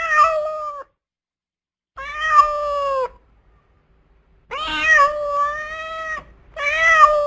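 Domestic cat meowing four times, each a long, drawn-out meow with short pauses between them.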